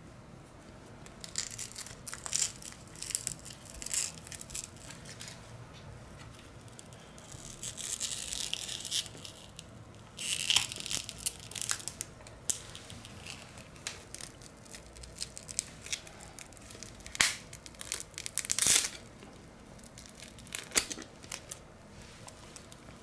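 Hand work on a smartphone during a screen replacement: scattered small clicks and scrapes of plastic and metal parts with crinkling, tearing-like rustles. There is a stretch of rustling about eight seconds in, and sharp, louder crackles later on, the loudest near the end.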